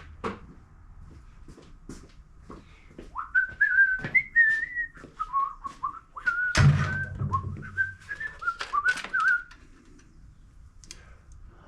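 A man whistling a short wandering tune, with scattered clicks and knocks of handling and one heavy thump about two-thirds of the way through.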